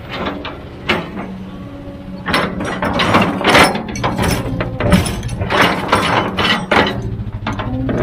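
Heavy machine's diesel engine running steadily under a run of irregular metallic clanks and rattles, thickest in the middle.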